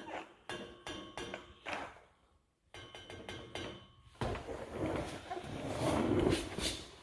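Light metallic clinks and knocks from handling the new welded steel exhaust pipes on their hangers, followed by irregular rustling and handling noise. It drops to complete silence for a moment about two seconds in.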